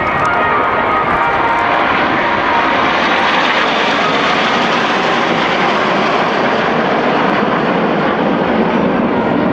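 Jet noise from the Red Arrows' BAE Hawk T1 jets and a Sentinel R1 flying past in formation. It is a loud, steady rushing roar with no distinct tones.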